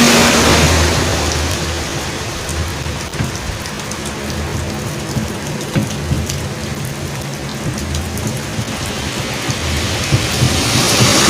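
Steady rain falling, with scattered drips. A passing vehicle fades out in the first second and another comes up near the end.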